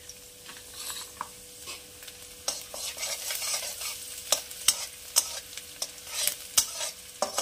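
Chopped garlic sizzling in a little hot oil in a metal kadai, stirred with a flat metal spatula that scrapes and clicks against the pan. The sizzle grows louder once the stirring starts, a couple of seconds in.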